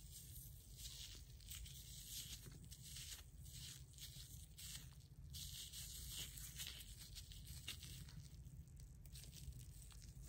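Faint, irregular rustling and squishing of a cotton pad soaked with foamy micellar water, pressed and rubbed between the fingers.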